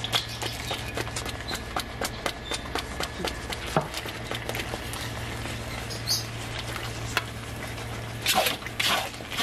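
Thick rice-and-palm-jaggery halwa cooking in coconut oil in a pan, bubbling with scattered small pops and ticks over a low steady hum. The hum stops about eight seconds in, and a short burst of noise follows near the end.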